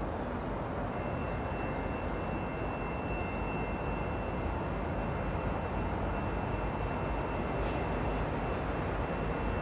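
Two diesel locomotives of an approaching freight train: a steady low rumble that grows slightly louder, with a thin steady high whine from about a second in.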